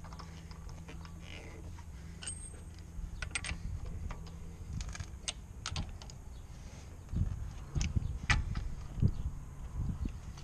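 Metal clicks and clinks of a lock-nut key socket and wheel brace being fitted onto a locking wheel nut on an alloy wheel. A few heavier knocks come in the last few seconds as the nut is tightened.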